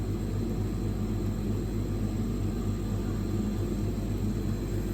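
Steady machine hum of a screw compressor unit's integrated refrigerated air dryer running in its pre-cooling phase, before the main 22 kW screw compressor motor starts.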